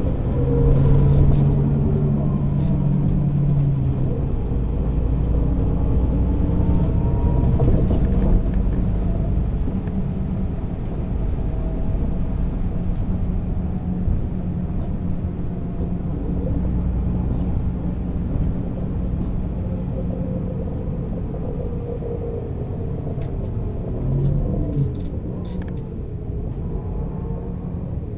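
MAN NÜ 280 (Lion's City) city bus under way: its diesel engine running with a deep rumble, the engine note gliding up and down several times as the bus pulls away, shifts through its ZF automatic gearbox and slows.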